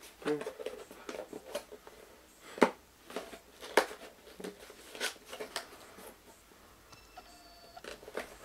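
Packaging of a camera ball head being pulled open and handled: scattered rustles and sharp clicks about a second apart. Faint beeping tones come in near the end.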